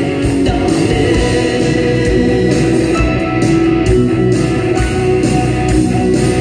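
Live rock band playing a song: electric guitars, bass, drums and keyboard under a lead singer with backing voices, at a steady full level with a regular low drum beat.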